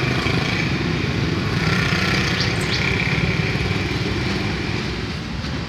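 A small engine running steadily nearby, a low rapid even rumble.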